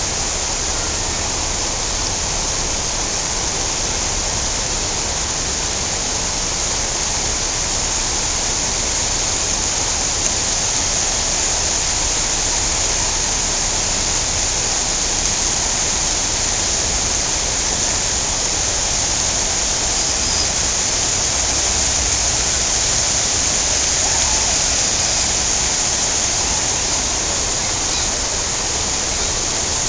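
Steady rush of fountain water splashing into stone pools.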